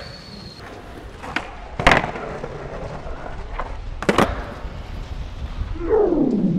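Skateboard wheels rolling on concrete, with a sharp snap about two seconds in and a loud clack of the board landing a flip trick about four seconds in. Near the end someone shouts with a falling-then-rising voice.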